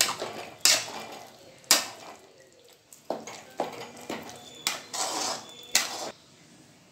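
Metal ladle scraping and clinking against a metal cooking pan while thick potato masala is stirred, in irregular strokes about once a second.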